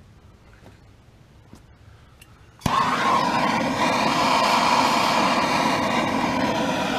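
A few faint ticks, then a handheld gas torch lights with a sharp pop a little under three seconds in. It then burns steadily with a loud rushing hiss as its flame heats the rubber of an ATV tire at the rim bead.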